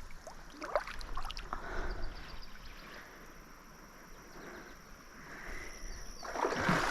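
Water sloshing and splashing at the river's edge as a released fish swims off, with a few sharp knocks in the first second and a half and a louder rush of water near the end.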